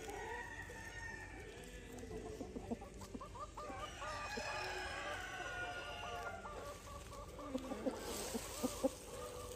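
Ayam Cemani chickens clucking, with a rooster crowing about four seconds in. A few sharp taps come near the end.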